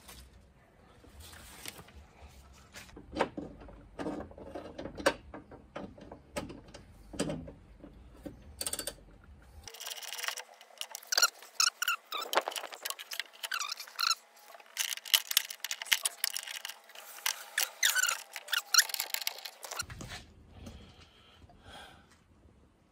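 Irregular clicking and scraping of a ratchet wrench tightening bolts inside a car door. Cloth rubs against the microphone through the middle stretch.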